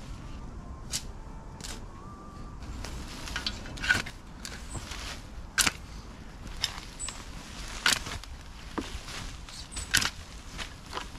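Garden spade digging into and turning a compost heap: crisp scraping, crunching strokes at irregular intervals of about one to two seconds.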